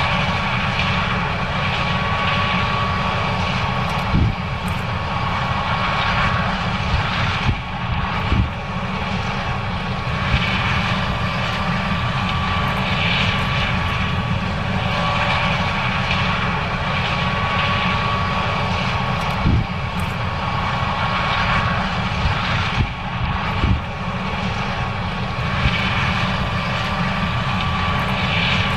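John Deere S770 combine running steadily while harvesting corn: a continuous drone with a thin steady whine, broken by a few short knocks.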